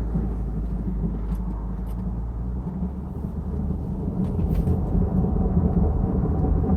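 Low grinding rumble from a 2015 Jeep Cherokee Trailhawk's driveline while driving, caused by the rear driveshaft left unattached after a power transfer unit replacement. The low drone shifts in pitch about a third of the way in.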